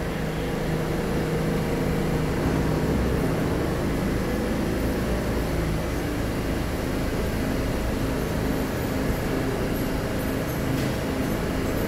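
R46 subway car standing idle at the platform, its onboard equipment giving a steady hum over low rumbling noise.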